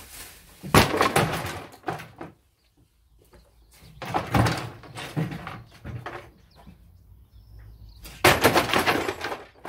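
Chipboard furniture being smashed down onto a paved patio. There is a loud wooden crash about a second in, scattered knocks and clatter in the middle, and a longer, louder crash near the end as a cabinet is thrown down and breaks apart.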